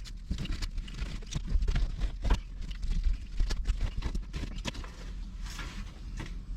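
Irregular knocks, scrapes and rustling as old carpeting is pulled up and handled on a car's floor.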